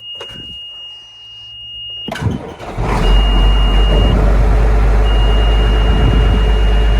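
Diesel tractor engine cranking and catching about two seconds in, then running at a steady idle. A steady high warning beep sounds before the start and comes back in intermittent stretches while the engine runs.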